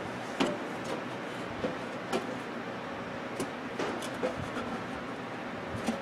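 Scattered light clicks and taps as a thin replacement waveguide cover is handled and fitted by hand inside a microwave oven's cavity, over a steady background hiss.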